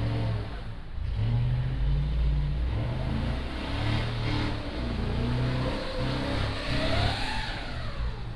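Vehicle engine revving in repeated surges as the vehicle tries to get free while stuck in deep snow, with a whine that rises and then falls near the end.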